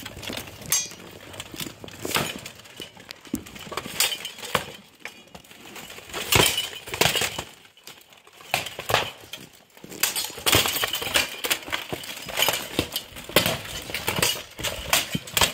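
Swords striking steel plate armor and shields in an armored sparring bout: irregular metallic clanks and knocks, coming in quick flurries of several blows.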